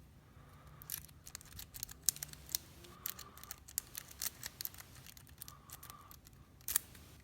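Steel lock-pick rake scrubbed in and out of a pin-tumbler lock cylinder, making a rapid, irregular run of small metallic clicks and scrapes. A sharper click comes near the end, when the lock opens.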